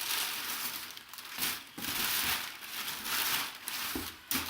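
Packing material being crumpled and handled, in several rustling, crinkling stretches, with two sharp knocks near the end.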